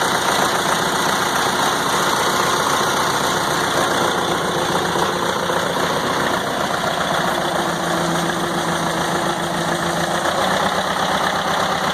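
Case 580B backhoe's engine running steadily.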